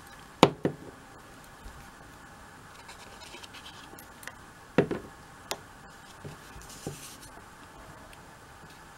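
Liquid glue bottle and cardstock being handled: a faint scratching as the glue tip is worked over the paper, with about six sharp taps and knocks, the loudest just after the start and about five seconds in, as the bottle and card are picked up and set down.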